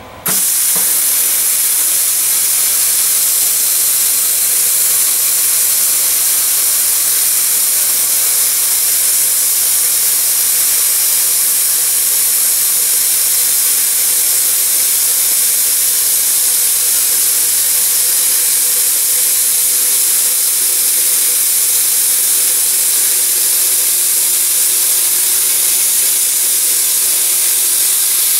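Snap-on YA2225 plasma cutter's Alpha 3A air torch cutting through a sheet-steel truck tailgate: a loud, steady hiss of air and arc. It switches on abruptly just after the start and holds without a break.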